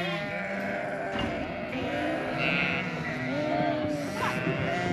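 A flock of ewes and lambs bleating over one another, with many calls overlapping, some deep and some much higher-pitched. This is the constant calling of ewes and lambs being sorted apart at weaning.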